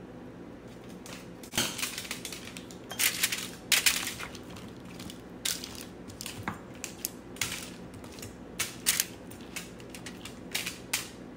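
Aluminium foil crinkling, with a spoon scraping and knocking against it as sauced chicken wings are turned over on a foil-lined sheet pan. The sounds come in irregular crackly bursts and clicks, starting about a second and a half in.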